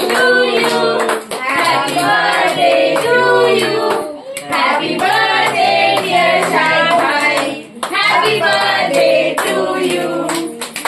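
A group of voices, children's among them, singing a birthday song in phrases of a few seconds each, with hands clapping along.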